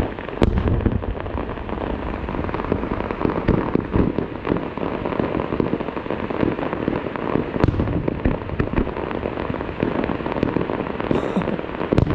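Fireworks going off in quick succession: a dense, continuous run of bangs and crackles over deep booms.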